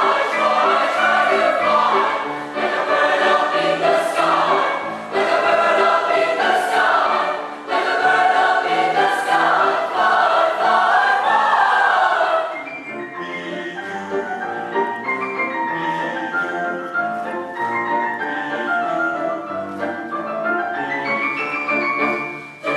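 Background music: a choir singing, loud and lively, then about halfway through the music drops to a quieter, held passage.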